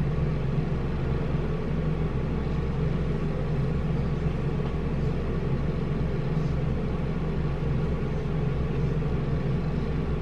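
A steady low hum, with faint chewing of a mouthful of cabbage.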